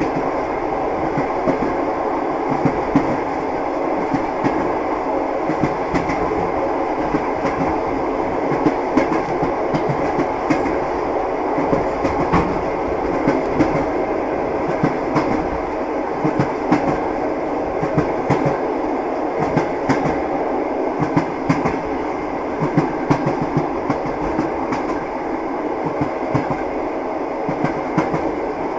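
Train wheels running on rails: a steady rumble with frequent, irregular clacks of the wheels over the rail joints.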